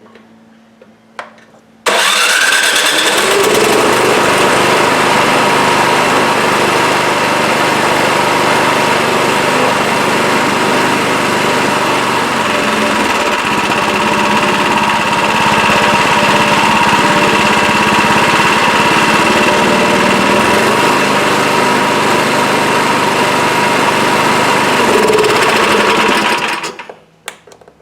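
Craftsman 26-inch snowblower's small gasoline engine starting on its electric starter about two seconds in, then running loud and steady before it is shut off near the end. It runs after a carburetor cleaning that cleared gelled-up old gas, the cause of its no-start.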